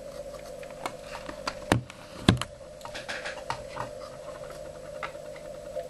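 Scattered clicks and two sharper knocks, the second the loudest, of cables and connectors being handled as an FE-5680A rubidium frequency reference is plugged in. A steady faint tone runs underneath.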